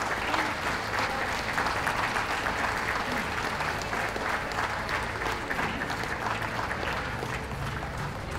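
Audience applauding, a steady patter of many hands clapping that eases off a little near the end.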